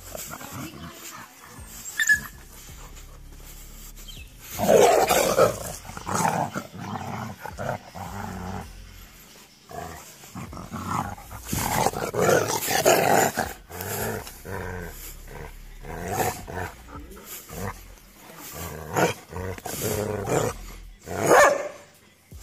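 Street dogs wrestling in a rough play-fight, growling in irregular bursts. The loudest bursts come about five seconds in, around twelve to thirteen seconds in, and shortly before the end.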